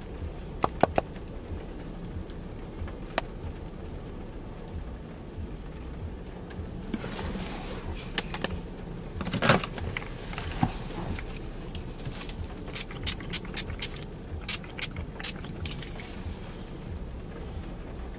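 Steady low road rumble inside a moving car's cabin, with scattered sharp clicks and light rattling of small objects being handled. A cluster of rustling and a louder knock comes about nine and a half seconds in, and a quick run of clicks follows a few seconds later.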